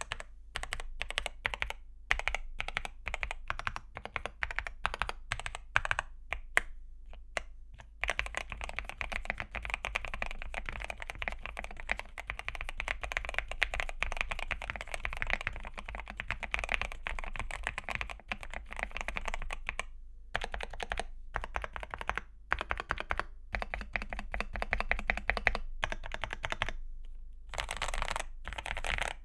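Mechanical keyboard typing on a Zuoya GMK87 with factory-lubed Gateron Oil King linear switches and XDA-profile PBT keycaps. Separate, spaced key presses at first, then fast continuous typing from about eight seconds in, breaking into short bursts with pauses in the last third.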